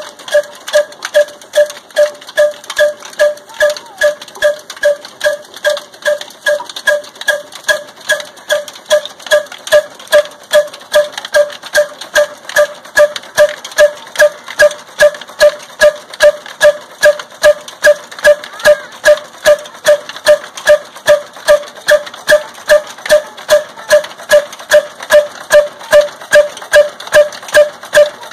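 Old black desi single-cylinder horizontal engine of the Ruston type running under load, belt-driving a chakki flour mill. It has a steady, even beat of about three strokes a second, each stroke with a ringing note.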